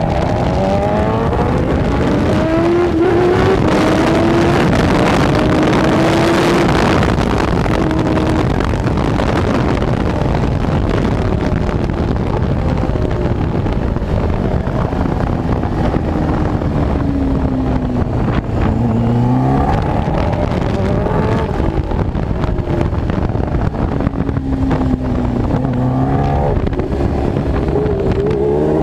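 Kawasaki Ninja H2R's supercharged inline-four at high revs, heard from a camera on the bike with wind rush over it. The revs climb hard in the first seconds, fall away as it slows around the middle, and climb again near the end.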